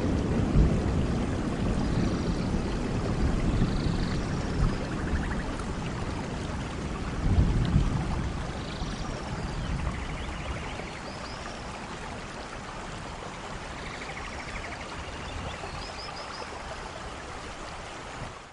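Steady rain with low rumbles of thunder, the strongest swell about seven seconds in, and faint high chirps above it. The whole gradually fades down.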